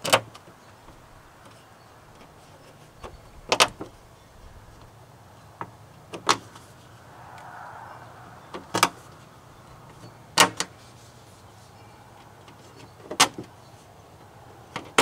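Plastic push pins of a hood weather strip being pressed into their holes in the underside of a pickup's steel hood, each going in with a sharp snap; about eight snaps come at irregular intervals of one to three seconds.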